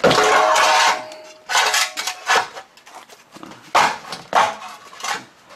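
A scrap metal exhaust part, used as a wheel chock, scraping across a concrete floor with a ringing tone for about a second, then knocking about six times as it is kicked in against the tyre.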